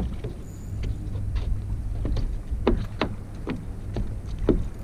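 Steady low wind rumble on the microphone and water lapping against a flats skiff's hull, with several short sharp sounds between about two and four and a half seconds in.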